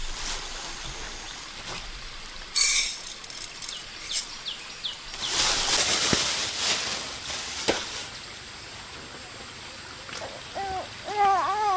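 Plastic bag rustling and crinkling as it is handled, in two bursts, with a few short bird chirps and a couple of light knocks. Near the end a wavering whimpering cry starts.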